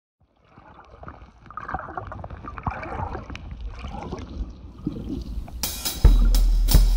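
Water bubbling and splashing with small clicks, muffled as if the microphone is underwater, as a bare foot wades in shallow water. About five and a half seconds in, loud music with drum hits cuts in over it.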